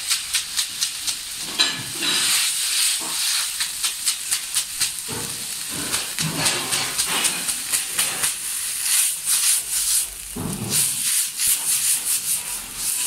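Water sizzling and hissing into steam on a hot cast-iron dosa griddle as a broom is swept briskly back and forth across it, giving a rapid, irregular run of scratchy strokes. The water is sprinkled on to bring the iron's heat right before the batter is poured.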